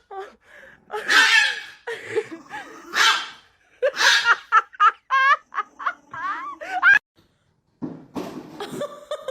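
A person laughing in breathy bursts, with some high wavering vocal sounds, cut off briefly near the end before other voices start.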